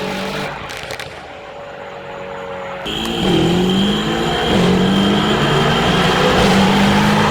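Mercedes-AMG E63S's twin-turbo V8 running through an Innotech iPE valved stainless exhaust. It runs fairly quietly at first, then about three seconds in it suddenly gets much louder, its pitch dipping and climbing again, with a thin high whine over it.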